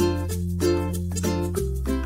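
Background music: quick plucked notes over a held bass, the bass note changing about one and a half seconds in.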